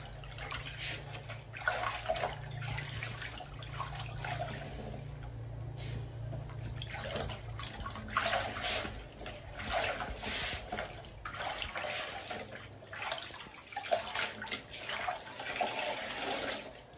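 Clothes being hand-washed in a plastic basin of soapy water: irregular sloshing and splashing as the garment is scrubbed and swished. Near the end, water pours back into the basin as a garment is wrung out.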